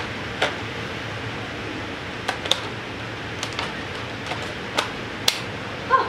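Plastic bottom service panel of an HP ProBook 4530s laptop being fitted back on, giving a string of sharp plastic clicks and taps at irregular gaps as it is pressed and snapped into place.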